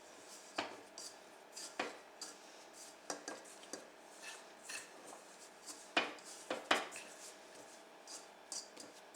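Kitchen utensils and dishes being handled, giving a string of separate light clinks and knocks, with the two loudest close together about two-thirds of the way through.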